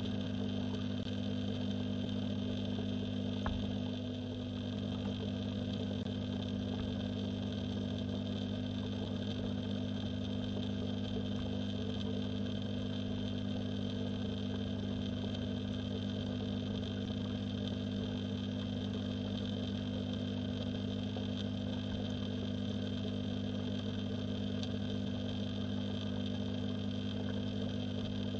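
Steady electrical-sounding hum heard underwater in a garden pond, a low drone with higher tones above it that holds constant throughout.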